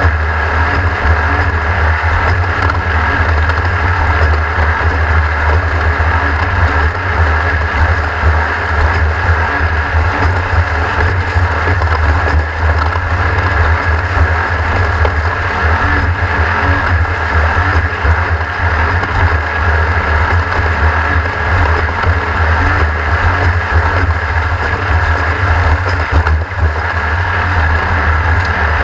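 Race vehicle's engine running steadily under load at speed, with heavy wind rumble on the microphone.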